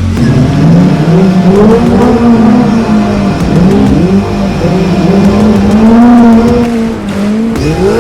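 Off-road race vehicle's engine being driven hard over rough terrain, its revs rising and falling again and again, then climbing steeply to high revs near the end.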